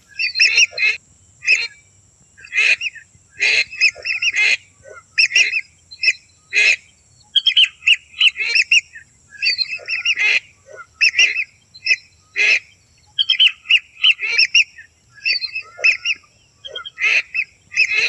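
Lesser whistling ducks calling: short, reedy whistled notes in quick clusters, repeating over and over with brief pauses.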